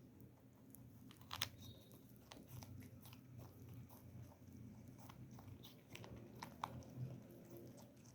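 Pet rabbit chewing food: faint, irregular crunching clicks, with a louder crunch about a second and a half in and another about two-thirds of the way through.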